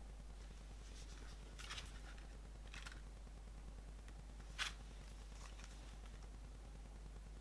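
CD packaging being handled: a few faint, short rustles and scrapes, with a sharper, louder click or scrape about four and a half seconds in.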